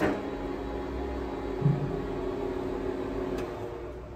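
Phoebus PGM-GVS300A milling machine motor switched on with a click, then running with a steady whine. The whine fades out just before the end, leaving a low hum.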